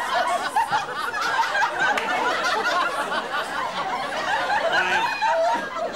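Studio audience laughing, many voices at once, easing off near the end.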